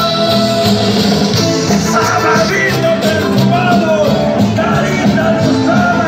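Loud Andean folk dance music with a steady low beat; a bending melody line enters about two seconds in.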